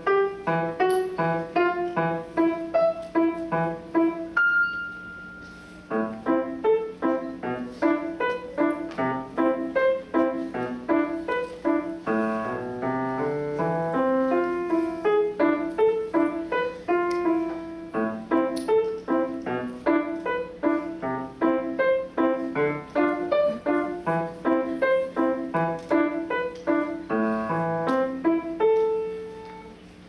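Solo grand piano played at a lively pace in short, separate notes, with a break about four seconds in where a single high note is held, and a final held note that fades away near the end, closing the piece.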